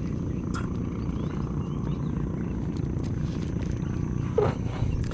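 Wind buffeting the microphone, a steady low rumble. A brief sharp sound with a falling pitch comes about four and a half seconds in.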